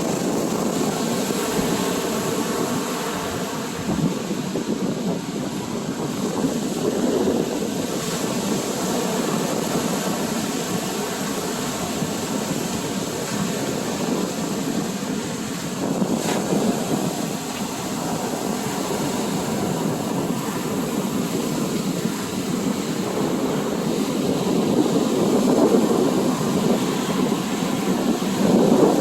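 Ocean surf washing in as a steady rushing, with wind on the microphone; it swells louder near the end.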